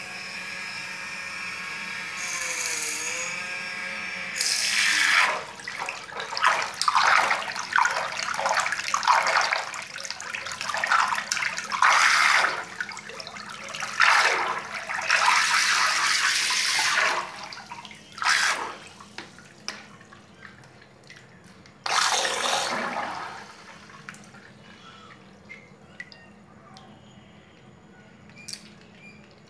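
Small electric motor of a homemade pipe-housed water jet whining steadily, with a brief dip in pitch. Then, about four seconds in, loud irregular splashing and churning as the jet is run at the water surface in a bucket, stirring and spraying water in surges. It dies down after about 24 seconds to faint dripping.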